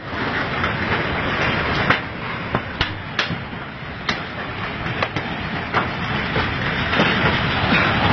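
Steady, loud rushing rumble of ground and debris moving in an earthquake, with sharp cracks standing out several times.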